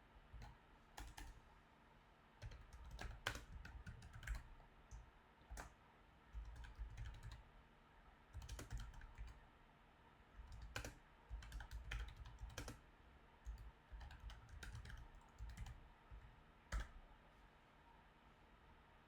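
Computer keyboard typing in quiet, irregular bursts of keystrokes separated by short pauses, with a few sharper key clicks.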